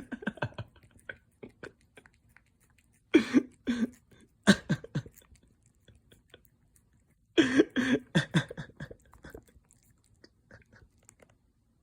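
Cat licking and smacking at a Churu lickable paste treat: a run of small, quick, wet clicks. Three louder short bursts come about 3 s, 4.5 s and 7.5 s in.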